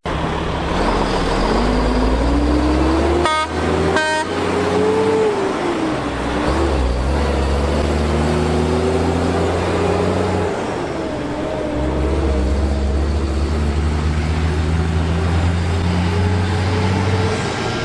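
Electric skateboard on the move: the motor whine rises and falls in pitch with speed over a steady low rumble of wheels and wind. A horn gives two short toots about three and four seconds in.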